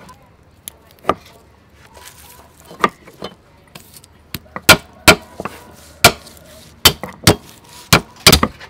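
Irregular sharp clicks and taps as garlic cloves are peeled by hand and set down on a thick wooden chopping block, about a dozen in all. They come louder and closer together from about halfway through.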